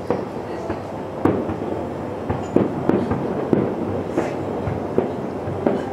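Distant aerial fireworks bursting during a finale: a string of irregular booms, roughly two a second, over a continuous rumble.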